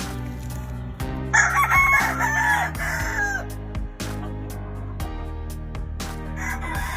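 Gamefowl rooster crowing once, a long call that drops in pitch at its end; a second crow starts near the end. Background music with a steady beat plays underneath.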